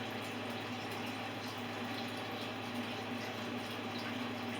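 Steady background hiss with a low steady hum, and a few faint ticks.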